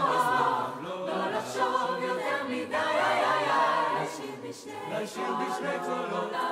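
Mixed choir of teenage voices singing a cappella in parts, in Hebrew.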